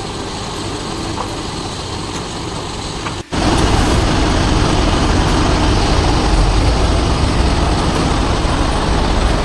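A vehicle engine running steadily. A brief dropout about three seconds in is followed by a louder, deeper rumble.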